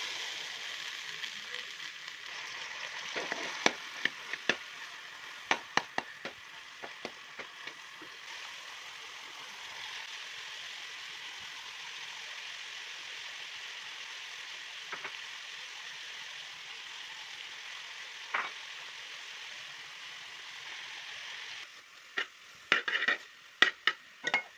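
Green peas and diced vegetables sizzling in hot oil in an aluminium wok: a steady hiss with scattered sharp pops and clicks. Near the end the hiss drops away and a metal slotted spatula scrapes and knocks against the pan in a quick cluster as the vegetables are stirred.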